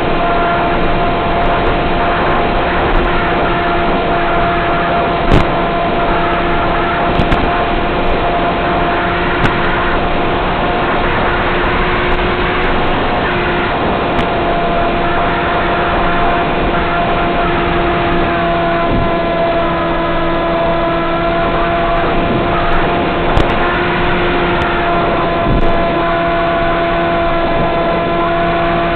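Electric motor and pusher propeller of a Z84 flying wing in flight, picked up by the onboard FPV camera, running steadily at part throttle: a constant hum-whine over a rush of air. A few short sharp clicks break in.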